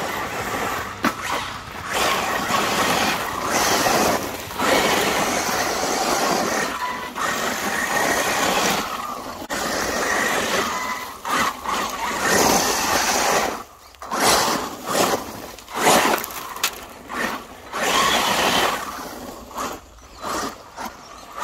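Losi Super Baja Rey 2.0 RC desert truck on 8S LiPo power driving on loose gravel: brushless motor whine and tyres scrabbling through stones, surging and dropping with the throttle. The second half is choppier, with several short, sharp throttle bursts.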